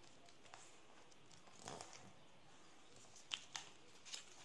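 Faint rustling of a sheet of coloured paper being folded by hand, followed by about three short, sharp crackles in the last second and a half as the crease is pressed down.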